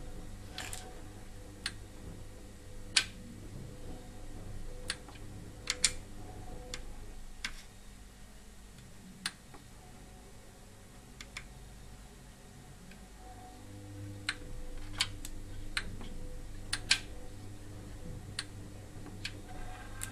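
A Samsung DVD-P181 DVD player's disc loader mechanism clicking as the player powers up and initialises: about fifteen sharp clicks at irregular intervals over a faint steady hum.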